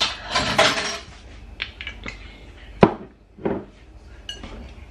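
Kitchen utensils handled against a ceramic mixing bowl and countertop: a scuffling rustle at the start, then a few separate clinks and knocks, the sharpest about three seconds in, as a whisk is taken up in the cake batter.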